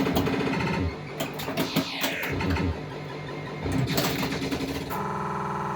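Williams Alien Poker pinball machine in play: rapid clicks and knocks from the playfield mixed with its electronic sound effects and falling pitch sweeps. A steady buzzing synthesized tone takes over about five seconds in.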